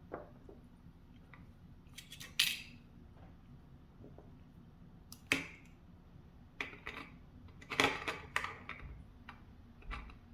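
Irregular light metallic clicks and taps from handling the disassembled core of a BiLock NG lock and its small springs and pins. The sharpest clicks come about two and a half seconds in and around eight seconds in.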